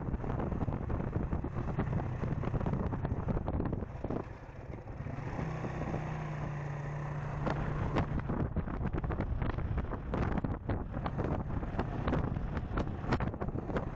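Suzuki GN125H's single-cylinder four-stroke engine running while riding, with wind buffeting the microphone.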